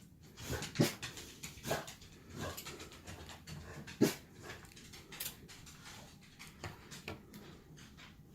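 A dog breathing and moving about, with irregular soft clicks and taps and a louder knock about four seconds in.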